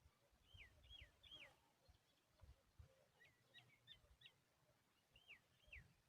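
Faint bird calls: short, hooked whistled notes in three small groups, about two or three notes each, with soft low thumps between them.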